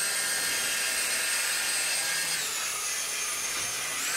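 Small LED flying ball toy hovering, its tiny propellers giving a steady high-pitched whine that drops in pitch about halfway through and rises again near the end as its motor speed changes.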